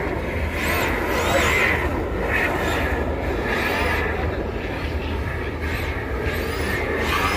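Radio-controlled drift cars' electric motors whining, the pitch swinging up and down in quick repeated arcs with the throttle, over a steady background din.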